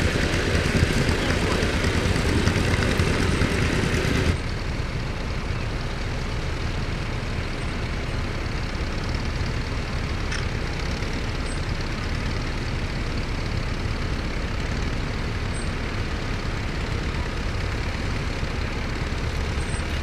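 Steady outdoor noise with tractor engines running in the distance. About four seconds in, the sound drops suddenly to a quieter, even level.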